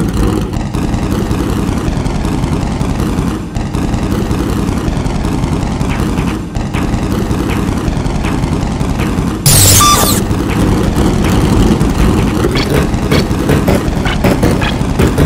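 Race car engine sound running and chopped by editing. A short, loud hissing burst comes about nine and a half seconds in and lasts under a second.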